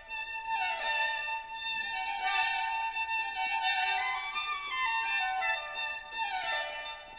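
Background music: a violin playing a melody with several falling phrases over held notes.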